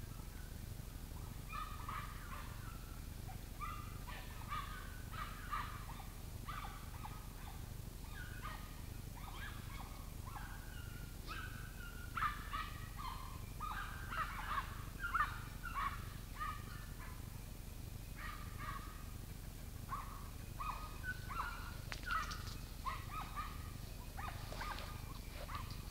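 A pack of hunting dogs barking and baying, faint and irregular in loose runs, busier from about halfway through: hounds giving tongue as they work the cover on a wild boar drive.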